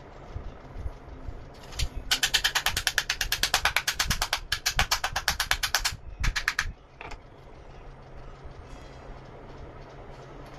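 A fast, evenly spaced run of mechanical clicks, about eight a second, lasting some four seconds, then a brief second run, over a steady low hum.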